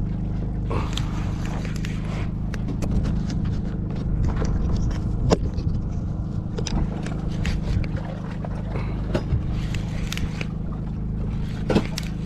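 An engine on board a fishing boat runs with a steady low drone, with scattered clicks and knocks; a sharper knock comes about five seconds in and another near the end.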